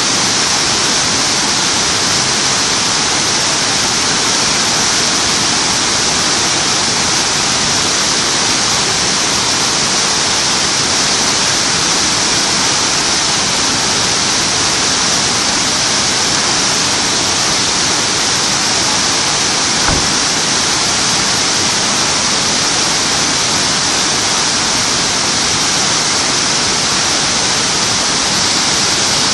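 Waterfall pouring steadily: a constant, loud rush of falling water.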